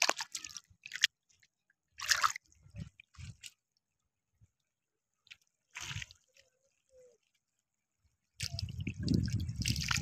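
Shallow water dripping and splashing in short separate bursts, then a louder stretch of sloshing about a second and a half long near the end as bare feet wade through it.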